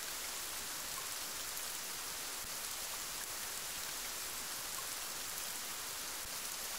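Steady rain falling, an even continuous hiss with a few faint scattered drop sounds.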